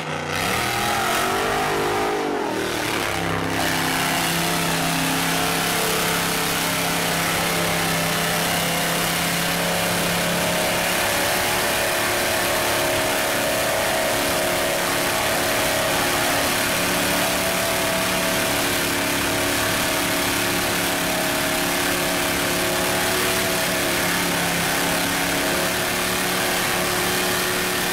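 A mud buggy's engine runs flat out as the buggy churns through a deep mud pit. The revs climb over the first few seconds, then hold steady and high.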